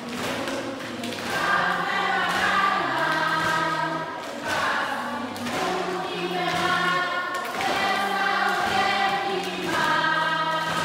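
A choir singing a song, with held notes that change every second or so over a low line that steps between a few pitches.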